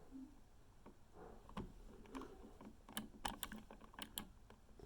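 A scattered series of faint, sharp clicks and taps, bunched in the second half: handling clicks, fitting presses on a wall switch's button.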